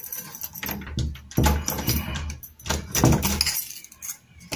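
A bunch of keys jangling and a key clicking in and out of a cheap keyed doorknob's lock cylinder as it is tried, with knocks from the knob being handled.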